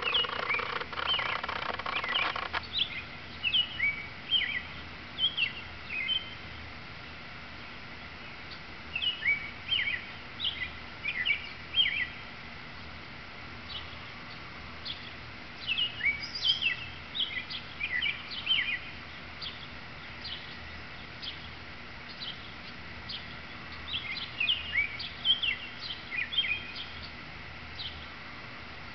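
Male American robin singing: bouts of short, clear whistled phrases, each bout a few seconds long with pauses of a few seconds between. A louder noise overlaps the first couple of seconds.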